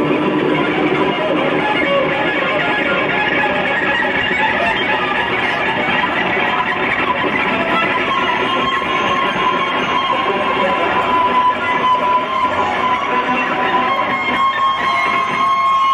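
Live electric guitar solo over a rock band, recorded from the crowd, with a long held high note about eight seconds in.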